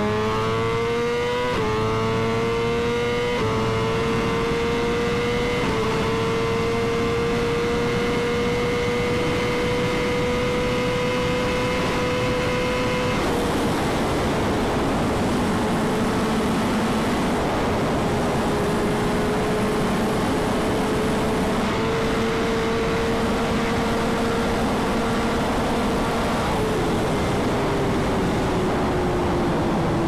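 Straight-piped BMW S1000RR inline-four engine at full throttle, climbing in pitch through three quick upshifts in the first six seconds and then holding a long high-rpm pull at very high speed. From about halfway a loud rush of wind joins it, and the engine note falls away over the last few seconds as the bike slows.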